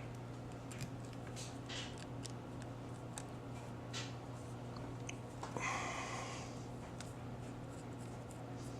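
Small metal clicks and taps from handling a mortise lock cylinder and its tools during disassembly, with a brief scraping rattle about five and a half seconds in.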